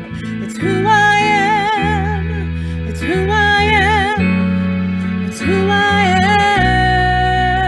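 A woman singing a slow worship song solo, holding long notes with a wide vibrato, over sustained instrumental chords.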